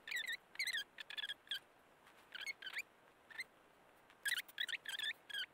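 Rosin-core solder flux sizzling and crackling as solder melts onto header pins under the soldering iron. It comes in short bursts of squeaky little crackles and chirps, several clusters with quiet gaps between them.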